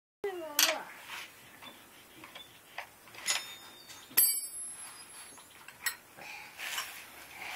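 Metal tools clinking and tapping in an irregular way, with a few sharp clinks, two of them ringing briefly.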